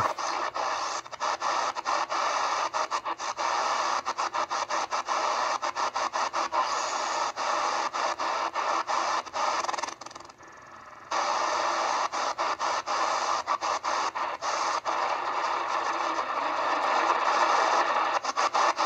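Shortwave static from an XHDATA D808 portable receiver's speaker as it is tuned down through the 31-metre band, the hiss cutting out briefly many times over. About ten seconds in it drops away for about a second.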